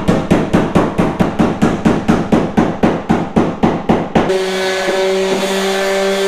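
A hammer beating rapidly on the aluminum jon boat's hull, a steady rhythm of about four blows a second. About four seconds in the blows stop and a Ryobi orbital sander starts, running with a steady hum and a hiss of sanding.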